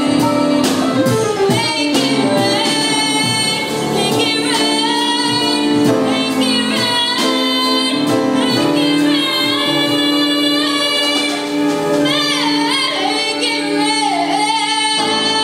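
A teenage girl singing solo into a stage microphone over instrumental accompaniment, holding long notes and bending the pitch on some of them.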